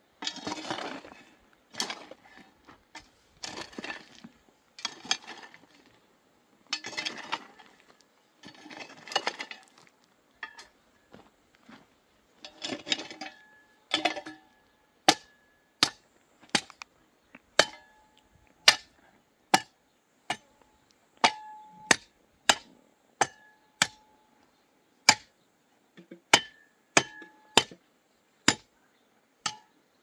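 A hoe chopping and scraping into dry, stony soil, a stroke about every second. From about halfway, a long iron bar is driven down into the rocky ground: sharp metallic clinks with a short ring, about one a second.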